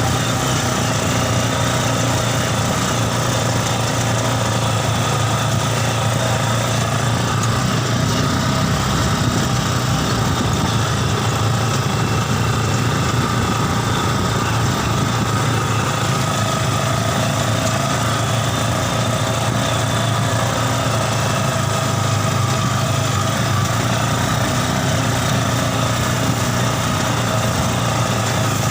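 A mini buggy's Yamaha Scorpio Z 225 cc single-cylinder four-stroke engine running at a steady, even speed, with no revving.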